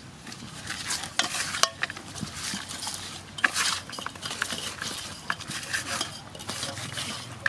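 Hands stuffing and rubbing chopped lemongrass, onion and leaves into a whole raw snakehead fish in an aluminium basin: irregular rustling with clicks and knocks against the metal.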